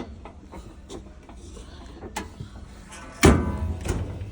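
A washing machine being shut: a light click about two seconds in, then a heavy thud with brief ringing, and a softer knock just after.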